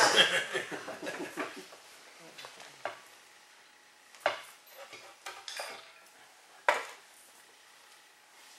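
Ceramic pottery being handled on a table: a clatter of clinks in the first second or so, then a few single sharp knocks as pieces are picked up and set down.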